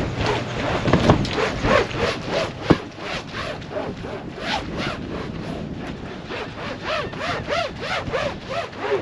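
Hand-scrubbing of a fibreglass boat deck with textured non-skid, quick back-and-forth strokes about three a second.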